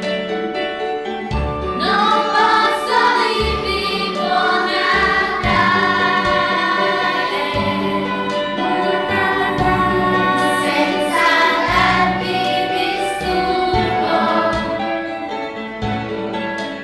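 Music: a choir singing over instrumental accompaniment, with low bass notes coming and going.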